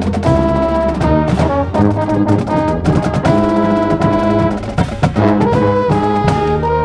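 High school marching band playing: brass chords with drums underneath, a mellophone sounding close to the microphone. Held notes are broken by short accented hits, and the brass line steps in pitch near the end.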